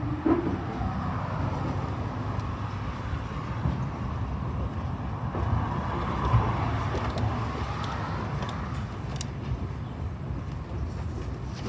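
Heritage railway carriage running along the line: a steady rumble of wheels on rails, with faint clicks and rattles.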